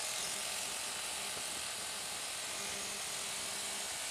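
Motorcycle riding noise: a steady hiss of wind and road, with a faint engine hum coming up about two and a half seconds in.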